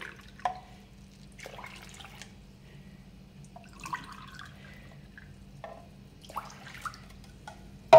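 Warm water poured in short trickles from a spout into a drinking glass, and from the glass into a plastic basin of fine semolina, with drips and small splashes.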